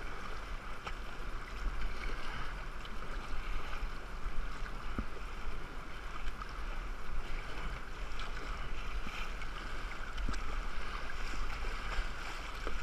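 River current rushing and lapping against a kayak hull, with the paddle blades dipping and splashing now and then.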